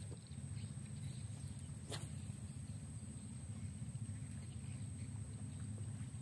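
Outdoor background noise: a steady low rumble with one sharp click about two seconds in.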